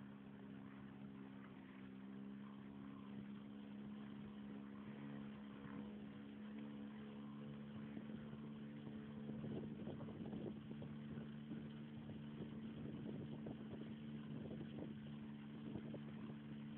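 Boat engine running steadily, a low even drone, with an uneven rushing noise over it in the second half.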